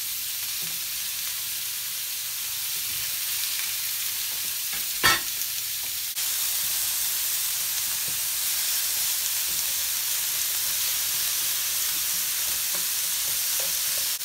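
Sliced onions and bell peppers sizzling in vegetable oil on a hot Starfrit The Rock griddle, turned now and then with tongs, as a steady hiss. A single short knock stands out about five seconds in.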